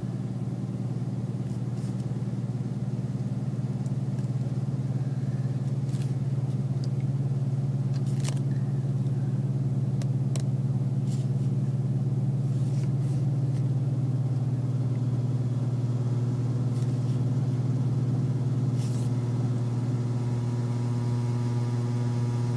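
A steady low hum, even throughout, with a few faint short clicks and taps while nail polish is brushed on and the bottle is handled.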